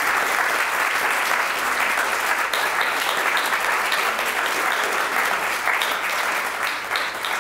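Audience applause: a seated crowd clapping steadily, thinning out near the end.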